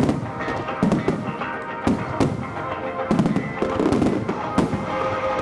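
Aerial fireworks shells bursting in quick, irregular succession, a sharp bang every half second or so, with music playing underneath.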